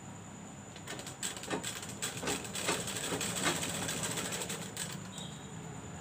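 Domestic sewing machine stitching through cotton fabric, a fast mechanical clatter of needle strokes that starts about a second in and stops about a second before the end.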